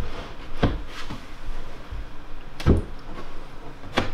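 Wooden butcher-block countertop sections knocking and bumping against each other as they are shoved together into a dry fit on biscuit joints: a few short dull knocks, the loudest a little past halfway.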